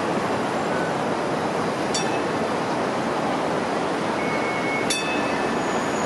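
A Hong Kong Light Rail Phase 1 car starting off from a stop: a steady rushing noise, with two sharp metallic clinks about two and five seconds in and a brief high squeal just before the second.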